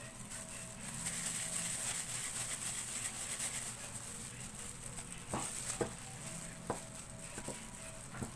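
Thin plastic food-handling gloves rustling and crinkling as gloved hands mix and knead a crumbly graham cracker and condensed milk mixture in a bowl, with a few light clicks in the second half.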